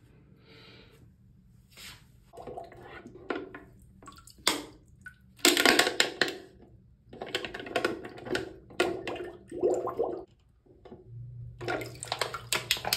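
Plastic water bottle held under the water of a toilet bowl and filling, with irregular gurgling and splashing as water rushes in and air bubbles out.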